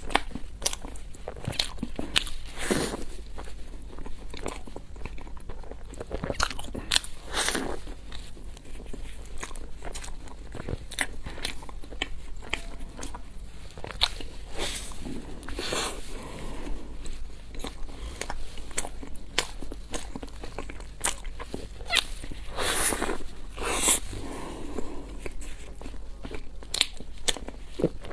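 Close-miked eating: bites into a crispy fried, cream-filled pastry, with crunching of the crust and chewing in an irregular run of crackles and a few louder crunches.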